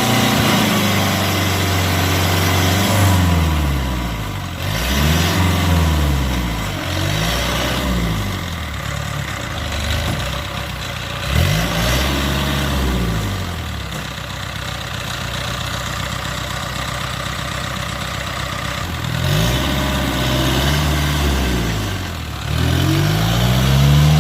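Diesel engine of a tracked harvest machine revving up and dropping back again and again, with a steadier stretch in the middle, as it labors in deep mud.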